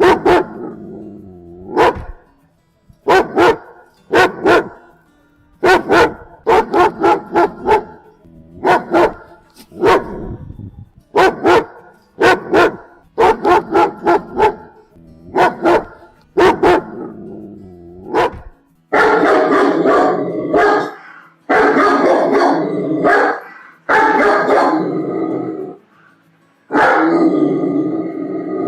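An angry German Shepherd barking: sharp barks singly and in quick runs of two to four, then, about two-thirds of the way in, long unbroken stretches of a second or two each of snarling growl-barks.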